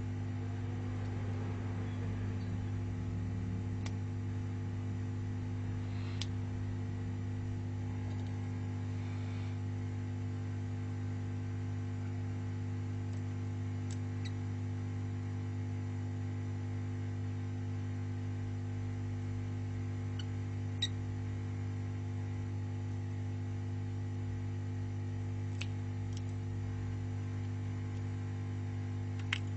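Steady low electrical hum. About half a dozen faint, brief clicks and ticks are scattered through it as small phone parts and tools are handled; the sharpest come about 21 seconds in and just before the end.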